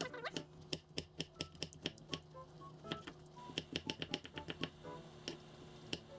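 Kitchen knife slicing a cucumber on a wooden cutting board: a quick, uneven run of sharp taps as the blade strikes the board, with light background music.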